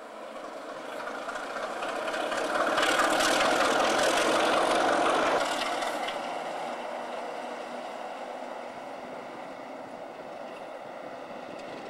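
Class 33 diesel locomotive running as a light engine with no train. Its engine grows louder as it approaches, is loudest for about three seconds as it passes close by, then drops away and fades as it runs off into the distance.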